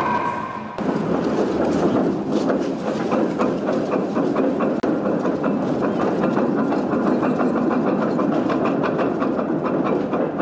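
Nimitz-class aircraft carrier's anchor chain paying out at high speed: heavy steel links clattering through the hawse pipe in a continuous, rapid rattle, with a sudden change in the sound about a second in.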